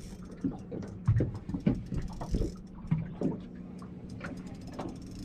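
Spinning fishing reel being wound in, its gears giving a fast fine ticking, with a few dull knocks in the first couple of seconds.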